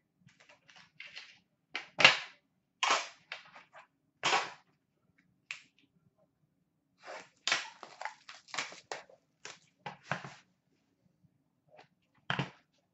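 Sharp clicks, snaps and short scraping rustles as an Upper Deck The Cup hockey card tin is unsealed and opened and its pack lifted out. The loudest snaps come about two, three and four seconds in, and a dense run of clicks and rustles follows in the second half.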